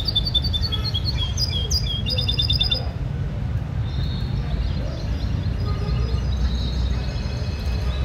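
Caged European goldfinches chirping and twittering in quick runs of repeated high notes, over a steady low rumble.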